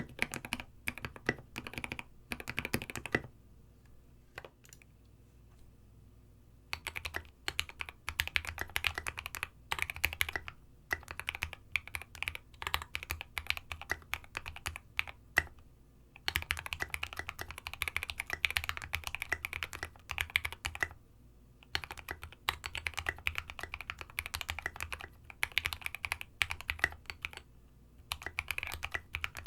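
Space65 custom keyboard with lubed H1 switches, 65 g springs, an aluminium plate and ABS SA-profile Oblivion keycaps being typed on in fast runs of clacks with short breaks. After a pause of a few seconds near the start, the typing resumes with the keyboard sitting on a desk mat, which adds a fuller low thock.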